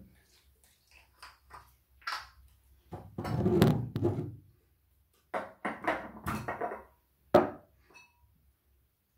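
Toiletries being handled at a bathroom washbasin: a plastic toner bottle and a glass jar of cotton pads picked up, opened and set down, with scattered knocks and rustling. A sharp knock near the end, fitting the jar's glass lid being set on the wooden shelf.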